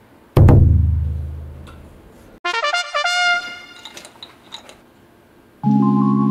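Small electric pump motor in a homemade drink dispenser buzzing steadily while it pumps liquid, cutting off right at the start and starting up again near the end. In between, a sudden loud hit fades out over about a second and a half, followed by a quick run of rising tones.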